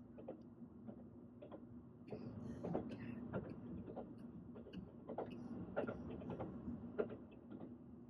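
Train running: a steady low rumble and hum with frequent irregular clicks and rattles.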